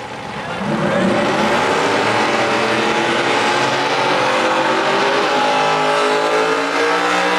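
Two big-block Camaro drag cars doing burnouts: engines held at high revs over the noise of spinning, squealing tyres. It builds up about a second in and then holds steady.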